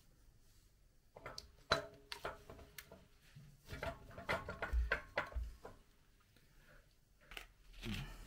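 Metal clinks and knocks as a motorcycle swingarm is handled and fitted against the frame at the pivot, several in quick succession in the middle, some with a short metallic ring.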